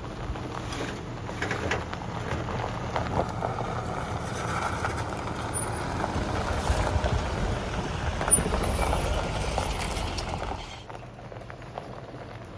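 A vehicle driving: a steady low rumble of engine and road noise with scattered small rattles and ticks, growing quieter about 11 seconds in.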